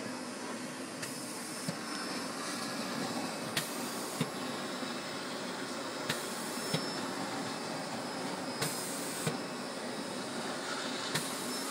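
Vacuum running steadily, sucking loose powder out of a Z Corp powder-bed 3D printer's build chamber to uncover the printed part, with a few sharp clicks.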